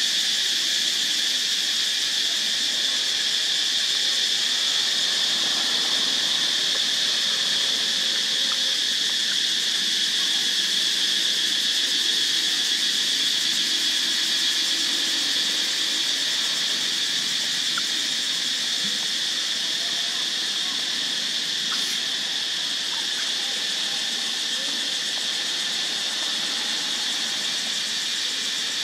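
Steady, high-pitched drone of an insect chorus, running without a break at an even level.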